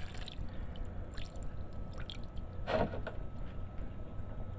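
Water trickling and draining through a DIY pond sump filter over a steady low pump hum, with small drips and one brief louder noise nearly three seconds in.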